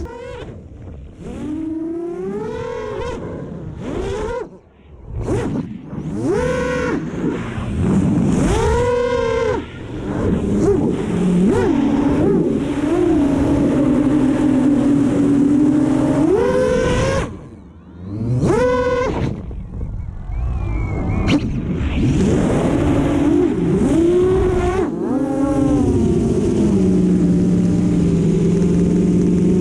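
10-inch FPV quadcopter's brushless motors (Brother Hobby Tornado T5 3115-1050KV on 6S) and props whining, the pitch rising and falling sharply again and again with throttle punches. Two short drops in level come about four and a half seconds in and again near the middle.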